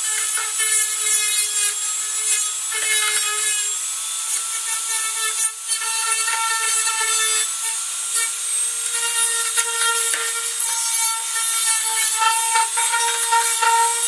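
Dremel rotary tool running at a steady high speed, a small sanding bit grinding burrs off the cut edges of a plastic enclosure. A steady motor whine sits under a scratchy grinding that swells and eases as the bit bears on the plastic.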